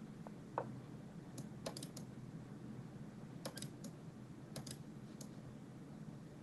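Faint computer mouse clicks in quick runs of two to four, made while moving pieces in an online chess game, with one softer knock about half a second in.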